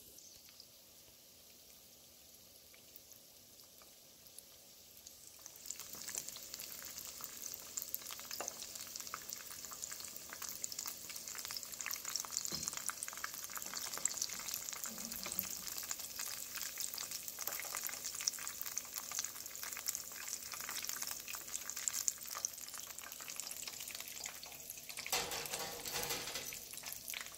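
Panko-breaded jalapeño poppers deep-frying in oil heated to 350 °F: a faint sizzle at first, then a steady crackling from about five seconds in. Near the end there is a briefly louder scrape as one is lifted out onto a wire rack.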